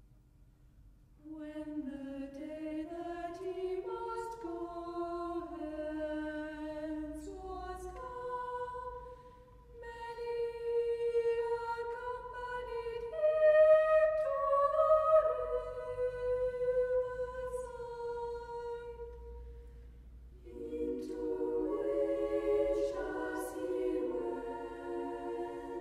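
Choir singing slow, sustained phrases, entering about a second in and easing off briefly twice before swelling again.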